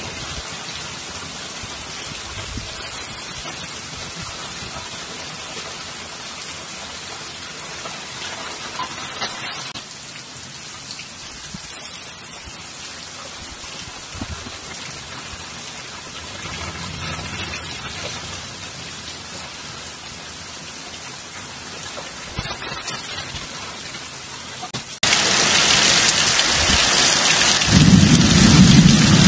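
Heavy rain pouring down steadily as a dense hiss. About 25 s in it suddenly grows much louder, and near the end a strong low rumble joins it.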